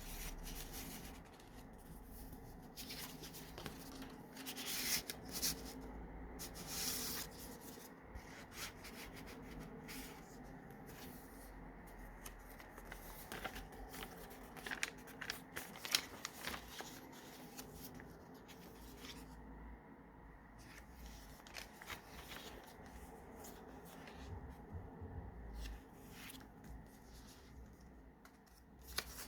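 Paper pages of a handmade junk journal being turned and handled, rustling and scraping on and off, with a few louder page flaps and small taps.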